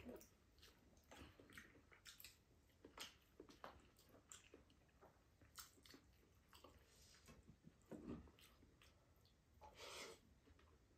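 Faint eating sounds at a table: quiet chewing, with scattered light clicks of spoons and chopsticks against bowls.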